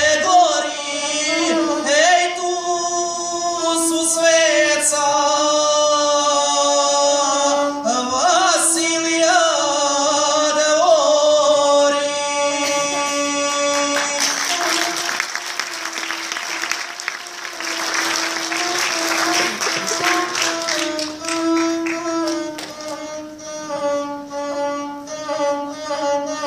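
A man singing an epic song in the guslar style to his own gusle, a single-string bowed instrument. About fourteen seconds in, the voice drops out and the gusle plays on alone.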